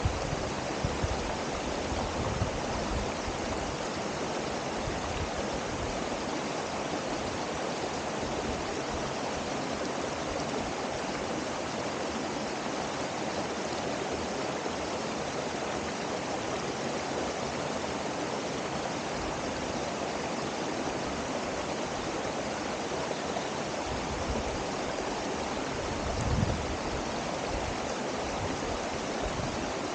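Himalayan waterfall, falling water rushing steadily and evenly. A few brief low thumps come about a second in and again about 26 seconds in.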